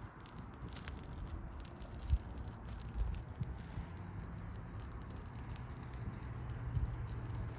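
Flames burning on the fuel-soaked circuit board of a cable TV converter box, crackling with small irregular ticks over a low steady rumble.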